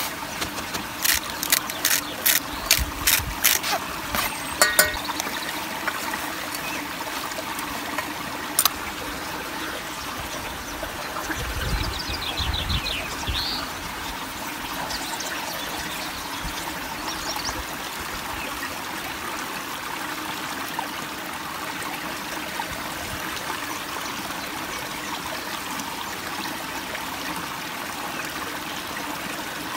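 Small mountain stream trickling steadily over rocks. In the first five seconds a quick series of sharp clicks and knocks comes from a knife and chopped vegetables on a cutting board and steel pot, with one more knock near nine seconds.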